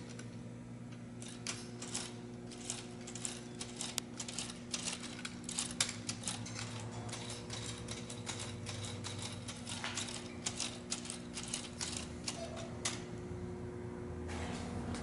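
Plastic Lego Technic gears and steering linkage clicking and rattling in quick, irregular runs as the rear-mounted hand-of-god steering knob is turned back and forth. The clicking stops shortly before the end.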